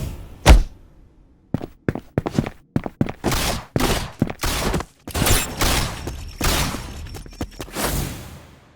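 Fight sound effects: a dense run of sharp hits and thuds mixed with longer noisy bursts, after a single hit about half a second in.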